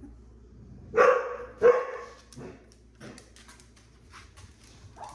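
A dog barks twice about a second in, the two barks close together, followed by a few soft clicks and taps.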